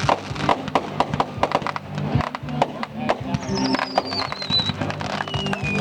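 Fireworks popping and banging in quick, irregular succession over music, with a high falling whistle about halfway through.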